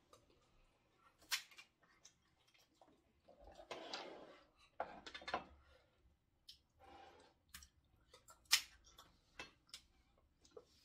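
Kitchen scissors snipping through steamed king crab shell, amid irregular clicks and clinks of shell and utensils against plates.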